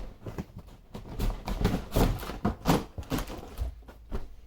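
Unboxing handling noise: a quick irregular run of clicks, knocks and rustles from the box and its packaging as they are pulled open and handled, dying away near the end.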